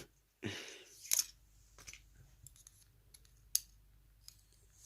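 Faint, scattered clicks and a light scrape of small metal lock parts being handled: the pins and shim of a disassembled Sargent mortise cylinder. The sharpest click comes about three and a half seconds in.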